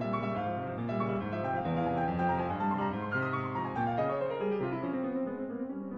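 Background piano music, with a run of notes falling in pitch about three and a half to five seconds in.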